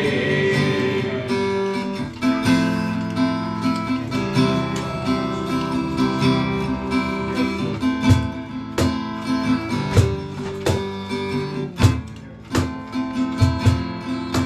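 Worship band's instrumental break: acoustic guitar strumming chords over a sustained accompaniment with a steady beat.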